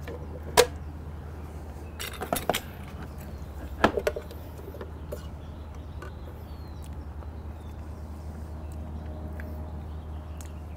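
A plastic blender jar and its lid being handled, with a few sharp clicks and knocks in the first four seconds as the lid comes off and a plastic spoon is dipped into the blended sauce, then only a steady low hum.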